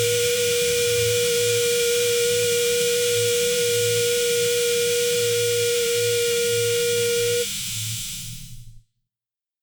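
Conveyor motor humming steadily, with a high whine over a hiss and a low throb that pulses in an even rhythm. About seven and a half seconds in the whine cuts off and the hum fades out to silence.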